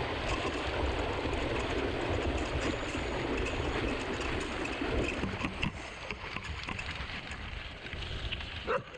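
Mountain bike rolling fast over a gravel forest road and through a shallow stream crossing, a steady rush of tyre and water noise that drops away about five and a half seconds in, leaving rattling clicks. A dog barks near the end.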